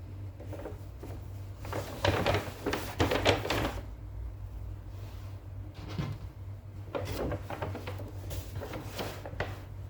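Two stretches of rustling and light clicking, as of things being handled, over a steady low hum.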